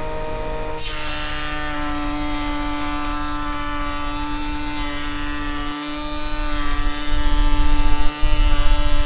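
Table-mounted router spinning a lock miter bit, running with a steady high whine and cutting hiss as a plywood board is fed past the fence. A deep rumble grows louder in the last few seconds.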